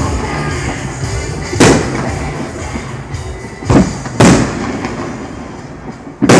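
Aerial firework shells bursting overhead: four loud booms, the middle two close together and the last near the end, each with a rolling echo.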